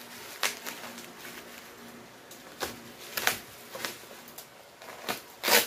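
Plastic-wrapped parcel and packing tape being handled and pulled open: short crinkles and rips at irregular moments, the loudest near the end.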